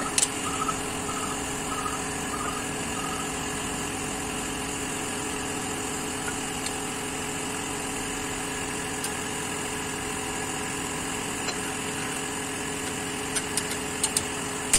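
Steady machine hum with several fixed tones, and a few sharp metallic clicks near the end from pliers setting a drum-brake shoe's hold-down spring on its pin.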